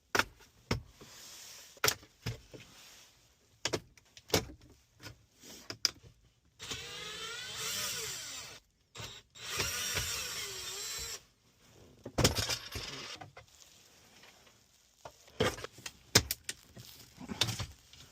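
Plastic interior trim being pried off a Toyota Camry: sharp clicks and knocks as retaining clips give, with two stretches of squeaky plastic creaking that wavers in pitch partway through. The clips are stiff from the cold.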